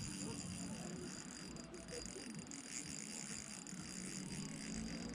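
Fishing reel on an ultralight rod, its mechanism ticking softly as it turns.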